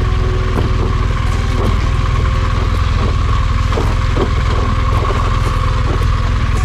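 Motorcycle engine running as the bike rides down a steep, rough dirt track, with a heavy low rumble and irregular knocks and clatters.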